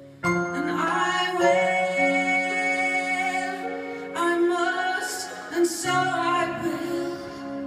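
A woman singing long held notes in slow phrases over sustained stage-keyboard chords, live in a concert hall.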